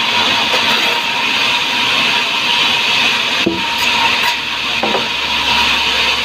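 Sawmill saw cutting hardwood: a loud, steady rasping noise with a constant high whine underneath, and a brief knock about halfway through.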